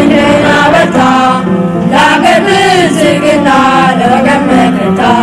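Music with singing voices carrying a melody over accompaniment.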